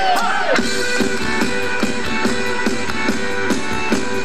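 Live rock band starting a song about half a second in: strummed acoustic and electric guitars over drums keeping a steady beat.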